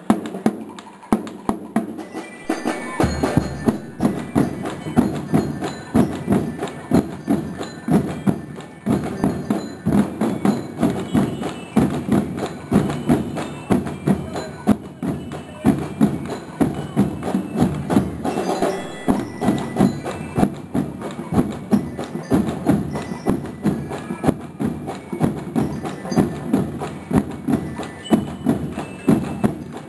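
A school marching band's drum line playing: snare and bass drums beating a steady march rhythm, with deeper bass-drum thumps coming in about three seconds in.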